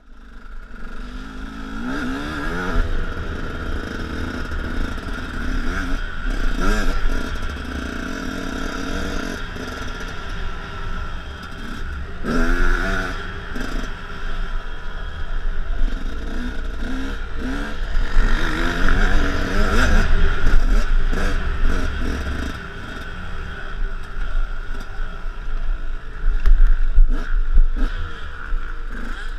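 2006 KTM 125 SX's single-cylinder two-stroke engine revving hard on a motocross lap, its pitch climbing again and again as the bike accelerates, then dropping as the rider shifts or shuts off for corners.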